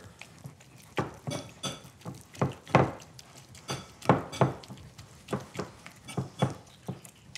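A ladle knocking and clinking irregularly against a bowl, about two strikes a second, as it chops and mashes hot deep-fried green banana pieces.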